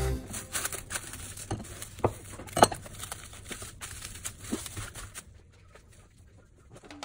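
Plastic cling film crinkling and crackling with scattered sharp crackles as hands press and smooth it around a whole fish. It dies down near the end.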